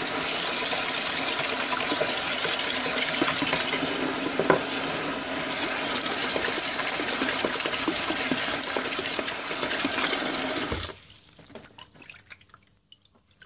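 Tap water pouring steadily into a sink basin, over a submerged smartphone. The flow stops abruptly about eleven seconds in, leaving faint drips and small splashes as a hand reaches into the water.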